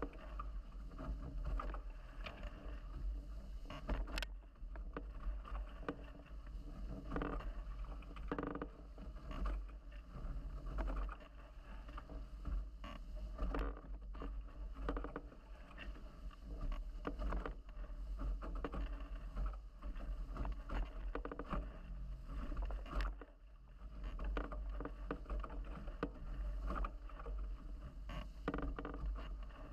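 The hulls of a Nacra 17 racing catamaran rush through the water at speed, with uneven splashing and spray under a steady low rumble. A couple of sharp knocks come through the boat.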